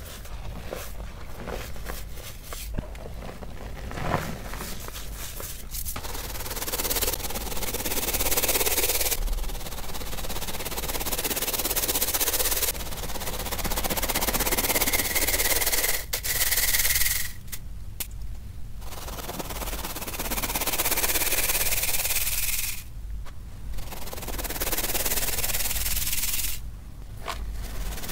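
Hands crumbling and squeezing clumps of cornstarch and reformed gym chalk with dry crackling. Then a mesh sieve is shaken and rubbed, and the fine powder hisses through it in long spells broken by a few short pauses.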